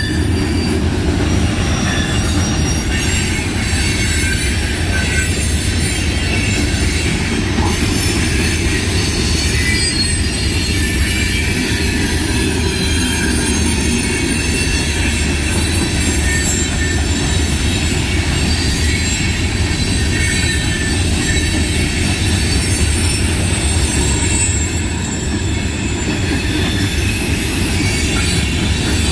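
Freight train hopper cars rolling past close by: a steady, loud rumble of steel wheels on rail, with thin, high wheel squeals drifting over it throughout.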